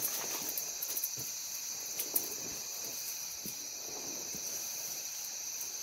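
Steady high-pitched drone of insects in the grassland, with soft, irregular rustles and a sharp tick about two seconds in as the elephant moves through the tall grass.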